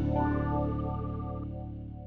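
End-card music: a held chord fading out.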